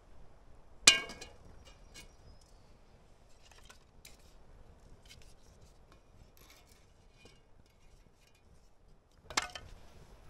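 Steel cooking grate set down onto a small charcoal kettle grill with a ringing metal clank about a second in, then faint clicks and scrapes as the burning coals are poked through the grate, and a second metal clank near the end.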